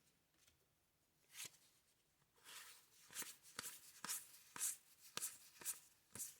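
Baseball cards being handled and slid past one another: a faint run of short, soft card swishes and clicks, starting about a second and a half in.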